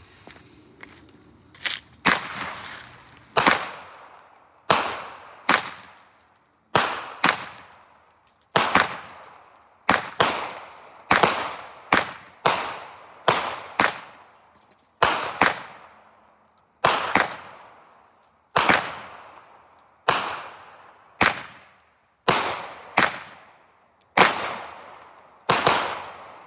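A firework going off in a long run of sharp bangs, roughly one a second and sometimes two close together, each trailing away before the next.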